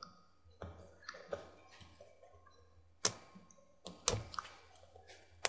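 Light clicks and taps of fingers and plastic as a laptop's 14-inch LED screen panel is handled at its top edge by the video cable connector, with sharper clicks about three and four seconds in and again near the end.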